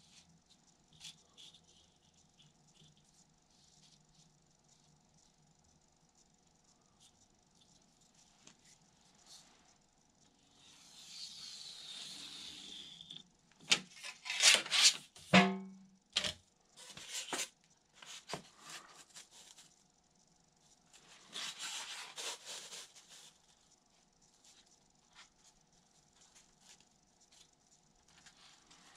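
Handling sounds of a metal straightedge and a marker pen being worked along a foam wing core: soft rubbing and ticking, hissy scrapes, and a run of louder knocks and scrapes about halfway through, over a faint steady hum.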